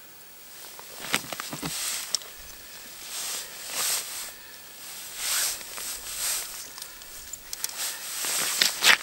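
Irregular rustling and scuffing of a padded winter jacket and hands as an angler raises, lowers and handles a short ice-fishing rod. The swishes come every second or so, with a few sharp clicks and the loudest rustle near the end.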